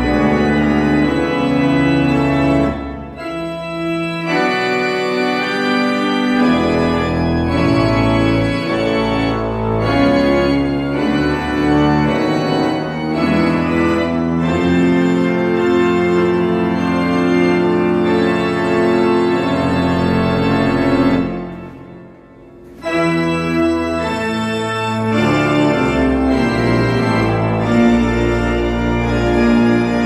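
Church pipe organ playing, with several notes held and moving at once. The playing breaks off briefly about two-thirds of the way through, then resumes.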